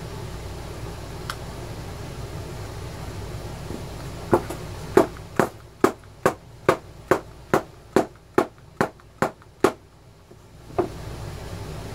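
A run of about a dozen sharp taps at a steady two to three per second, then one last tap, from tapping the plastic case of a Quantum Battery 1 Plus pack to work the parts into place. A steady hiss runs underneath.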